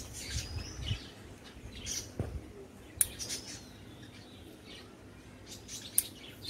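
Scissors snipping chilli stems: two sharp clicks about three seconds apart, with leaves rustling as the plant is handled. Birds chirp in the background.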